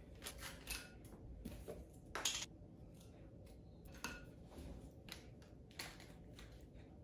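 Faint, scattered clicks and light knocks of dishes being handled, the loudest about two seconds in.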